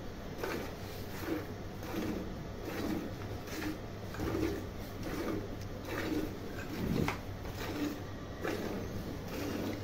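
Hand milking: milk squirting in short, regular spurts into a partly filled steel bucket, about two squirts a second, with one stronger squirt about seven seconds in.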